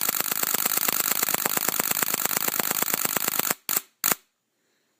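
Nikon D3 DSLR firing a continuous high-speed burst: shutter and mirror clattering at about ten frames a second, stopping abruptly about three and a half seconds in, then two more single clicks.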